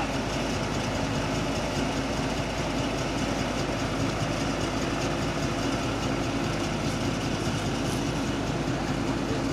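Komatsu PC71 excavator's diesel engine running at a steady speed.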